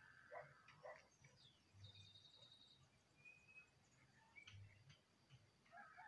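Faint songs and calls of small wild birds: scattered short chirps and whistles, a buzzy trill about two seconds in and a thin held whistle a second later.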